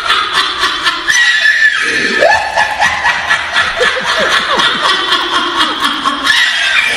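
A man laughing uncontrollably into a handheld microphone, in long high-pitched squeals broken by short gasping bursts of laughter.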